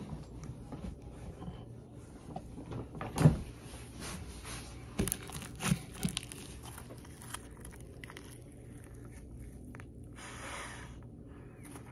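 Handling noises at a table: scattered knocks and thumps, the loudest about three seconds in and a few more around five to six seconds, then a short breathy rush near the end as the slime is held to the face.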